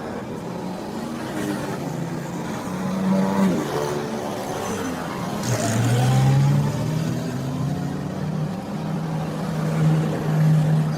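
A motor running steadily, its pitch rising a little after halfway and holding there.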